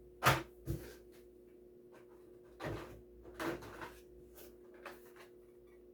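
Carded Hot Wheels die-cast cars in plastic blister packs being handled: a sharp plastic clack and a smaller one just after, then two stretches of cardboard-and-plastic rustling with light clicks, over a faint steady hum.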